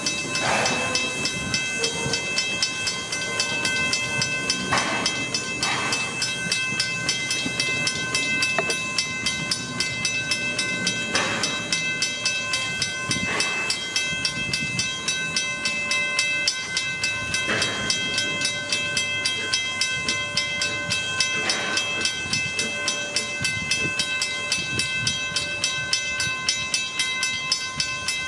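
Steam locomotive-hauled train running along the track with a steady, even rhythmic clatter.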